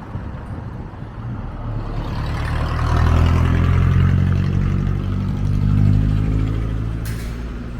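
A road vehicle driving past, its engine and tyre noise building over a couple of seconds, staying loud, then fading away. A brief sharp click comes near the end.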